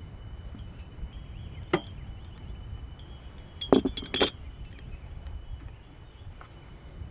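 Metal clinks of the anchor chain and the snubber's chain hook being handled at the bow: one clink a little under two seconds in, then three sharp, ringing clanks in quick succession around four seconds. A steady high drone of cicadas ashore runs underneath.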